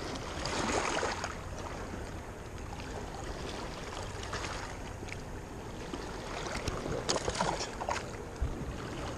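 Wind on the microphone and small waves lapping at a rocky shoreline, a steady noisy wash that swells briefly about a second in. A few short handling rustles come near the end.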